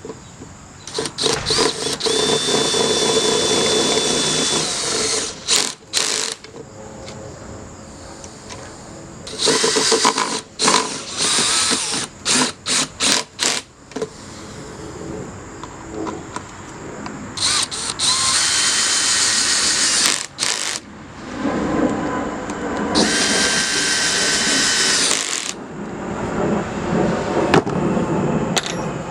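A power drill with a socket extension driving hex-head screws into a wooden 4x4 post. It runs in four separate bursts of motor whine; the second is a stuttering series of short pulses.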